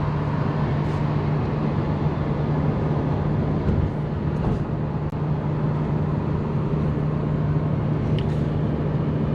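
Car driving along a road: steady engine and tyre noise with a constant low hum.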